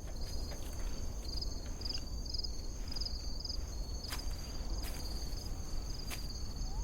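Insects chirping in a high, pulsing trill over a steady high whine, with a low steady rumble beneath and a few faint ticks in the second half.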